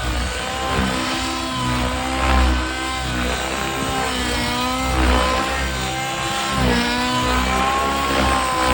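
Nitro RC helicopter's glow-fuel engine running through its muffler, its pitch rising and falling repeatedly as the throttle and rotor load change.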